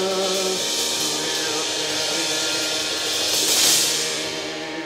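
Live band music: cymbals on a drum kit swell into a wash that peaks between three and four seconds in and then fades. Under it runs a low, steady drone, and a sung vocal line ends in the first second.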